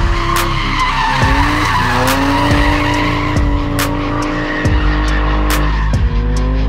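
A drifting car's engine held at high revs, rising about a second in, with tyres squealing across the track. Music with a steady beat and deep bass plays underneath.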